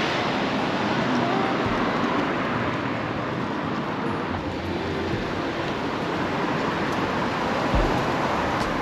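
A steady, even rushing noise with no clear tones or rhythm, with a couple of brief low thumps near the end.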